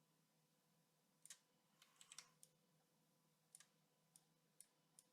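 Near-silent room tone with a faint steady hum and about eight faint, irregular clicks from computer use, a small cluster of them about two seconds in.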